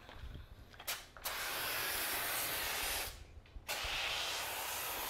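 IK Foam Pro 2 Plus hand-pump foam sprayer hissing as it sprays cleaner foam, in two long sprays with a short break a little past halfway.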